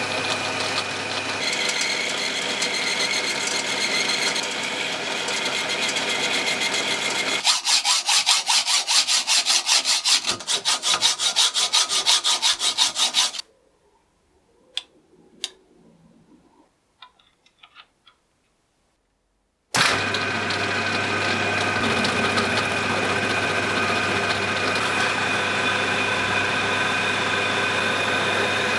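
Metal lathe drilling into a spinning metal bar with a large twist drill, running steadily. About seven seconds in it gives way to a fast, even rhythmic rasping of metal being sawn, then a quiet stretch with a few light clicks. Near the end the lathe runs again as a cutting tool faces the end of the bar.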